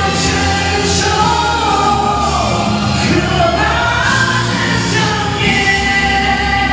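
A man singing a Chinese ballad into a handheld microphone over instrumental accompaniment, his line bending in pitch and then holding one long note about five and a half seconds in.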